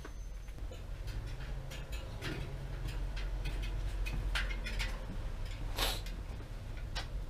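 Scattered light clicks and knocks from a bare bicycle rim being handled and moved about, over a steady low hum, with one sharper knock about six seconds in.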